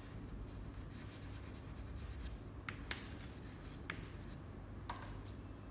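Soft pastel stick scratching and rubbing across paper, with a few sharp little ticks in the second half.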